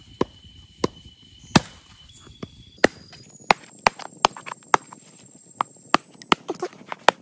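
Machete blades chopping into a fire-blackened bamboo tube: a string of sharp, irregular chops that come faster after about three seconds.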